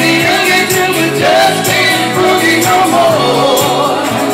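Live band playing a song with a singer over a steady drum beat.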